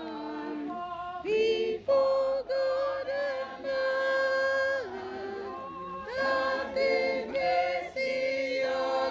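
A group of women singing together unaccompanied, with long held notes; the singing swells louder a little over a second in.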